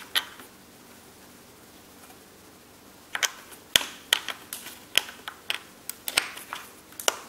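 Handling noise from a mechanical gaming keyboard and its cable: after about three quiet seconds, an irregular run of sharp plastic clicks and knocks, about two a second.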